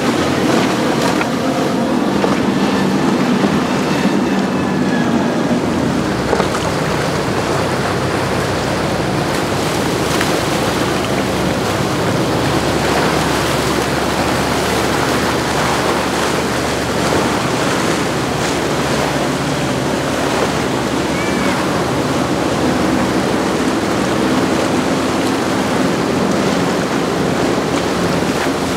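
Outboard boat engines droning over a steady rush of breaking waves, with wind buffeting the microphone. For the first six seconds the drone comes from a Boston Whaler 420 Outrage's quad Mercury 350 outboards. After that the engine hum fades into the wash of water, and it grows clearer again near the end.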